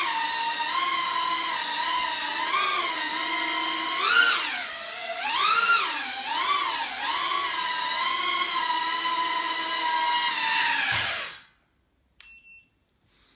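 Small 130 mm quadcopter's motors and propellers whining in a hover, the pitch dipping and swinging up and down several times around four to seven seconds in as the throttle changes. The whine cuts off suddenly near the end as the quad lands, followed by a single faint click.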